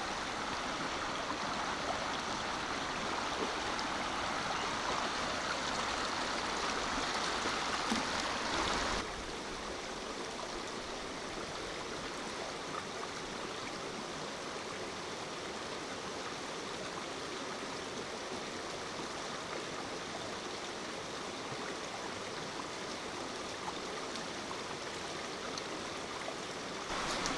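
Conasauga River flowing steadily. The water noise drops a little in level about nine seconds in.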